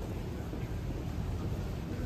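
Steady low rumble of outdoor street ambience, with no distinct event standing out.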